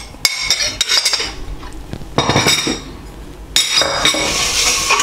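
A metal spoon clinking and scraping against bowls as egg and ginger-garlic paste are scooped into a stainless steel mixing bowl of sliced onions. From about three and a half seconds in, a longer scrape with ringing as the stainless steel bowls are shifted across the worktop.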